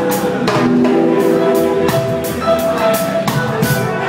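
Live reggae band music with no vocals: sharp drum hits over held, sustained notes.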